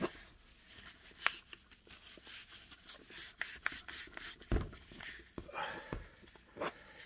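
Wet cleaning wipe rubbing over the plastic casing of a DeWalt 12V cordless drill, with scattered small clicks and a couple of dull knocks as the tool is handled.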